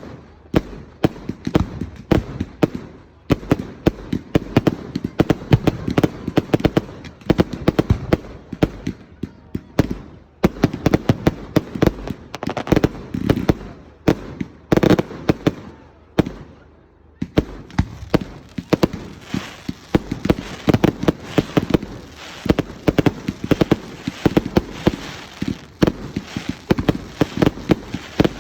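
Fireworks display: a rapid, continuous barrage of sharp bangs and crackles, with a short lull just past halfway before the barrage resumes.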